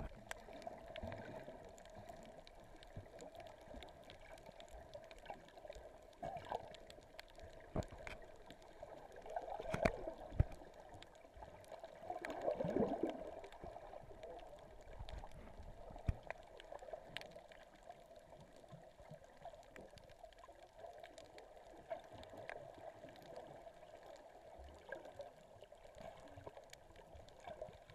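Muffled underwater water sounds of sloshing and bubbling, heard by a camera moving just below the sea surface. Scattered knocks, and a louder swirl of bubbles about twelve seconds in.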